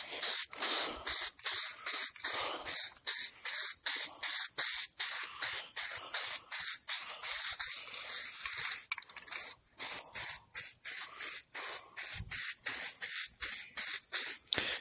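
Aerosol can of matte black spray paint hissing in a rapid run of short, evenly spaced bursts, about three or four a second, laying on a light coat.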